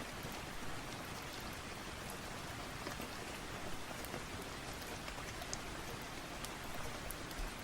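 Steady rain: an even hiss of falling rain with scattered light ticks.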